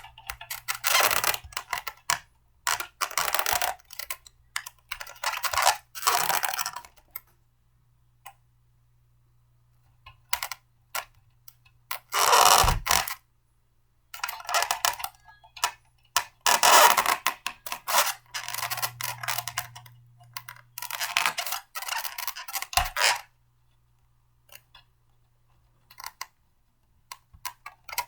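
Blender parts being handled and fitted together by hand: repeated bursts of clattering and scraping, each a second or two long, with short pauses between.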